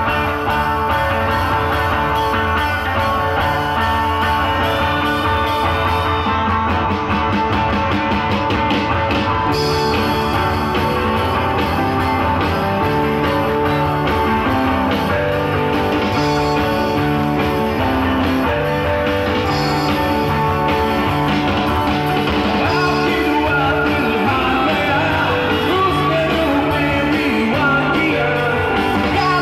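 Live rock band playing loud, with electric guitars, drums and singing.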